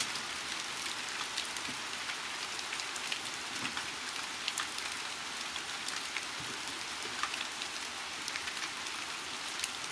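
Rain falling: a steady hiss with many small, scattered ticks of drops.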